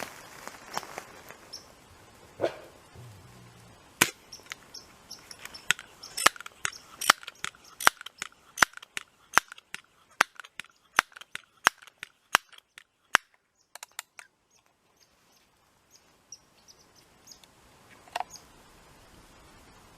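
A Crosman 1377 multi-pump air pistol being pumped up: a run of about a dozen sharp clicks at a fairly even pace, then a few scattered clicks and a single louder click near the end.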